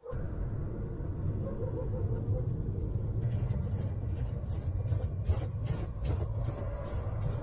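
Deep steady rumble that starts abruptly, joined about three seconds in by a run of sharp, irregularly spaced hits.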